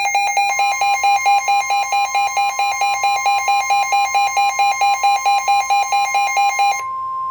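Midland WR120 weather radio's alert alarm beeping rapidly, about four pulses a second, over the steady NOAA Weather Radio warning alarm tone that comes in about half a second in. The beeping stops near the end, leaving the steady tone alone. Together they signal an incoming severe thunderstorm warning broadcast.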